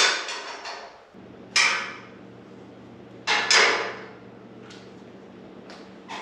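Short, sharp metal clanks on steel roll-cage tubing, five or six of them spaced a second or two apart, each dying away within half a second. A steady low hum starts about a second in.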